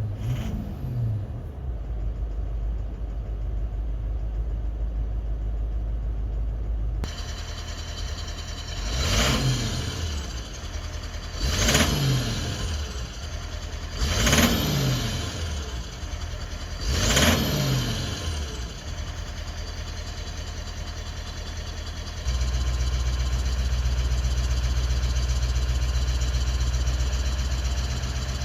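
Toyota 1VD-FTV V8 turbodiesel idling and blipped four times, each rev rising and falling, with the injector knock back once injector 7 is switched on again. The knock stops when that injector's fuel is cut, which marks injector 7 as faulty.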